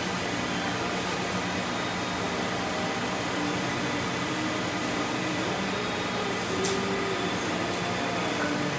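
Double-chamber vacuum packaging machine running steadily, its vacuum pump drawing down the chamber, with a single sharp click near the end.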